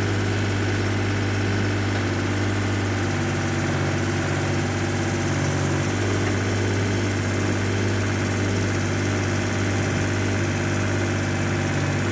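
Small backhoe's engine running steadily at idle, an even hum with a slight change in tone twice.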